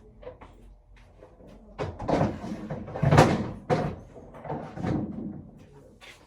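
A run of knocks and thumps, with several bangs close together and the loudest a little past the middle.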